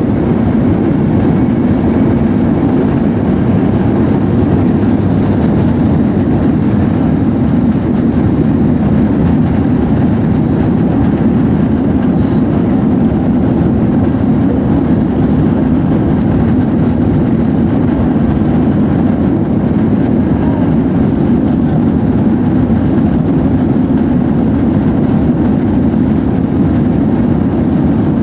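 Steady engine and airflow noise inside the passenger cabin of an Airbus A330-200 jet airliner, heard from a window seat during the takeoff flight.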